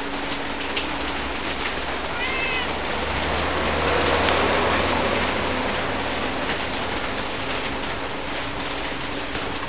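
Siamese cat gives one short meow about two seconds in, over a steady hiss of rain. The noise swells for a couple of seconds near the middle.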